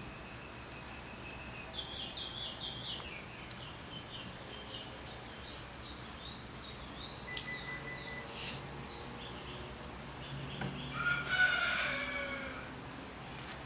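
Outdoor bird calls: a run of high chirps about two seconds in, and a louder, longer call with a rising and falling pitch about eleven seconds in.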